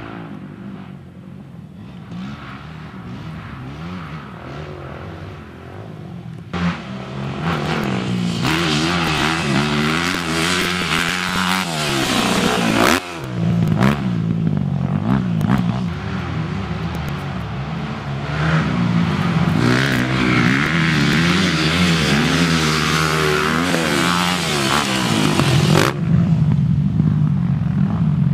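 Motocross dirt bike engines revving hard and dropping back, the pitch rising and falling as the riders open and close the throttle around the track. The sound jumps abruptly between shots, first about six seconds in, and is louder after that.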